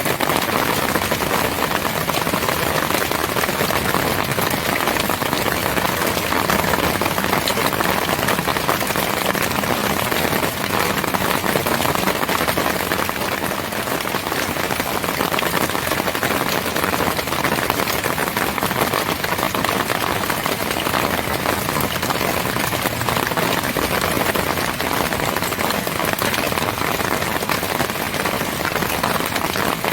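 Steady rain: an even, unbroken hiss of falling water with no thunder.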